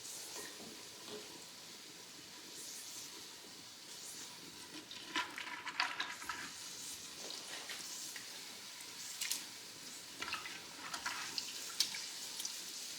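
Pressure canner running on the stove, venting steam with a steady hiss. Short clicks and knocks of crockery being handled come and go partway through.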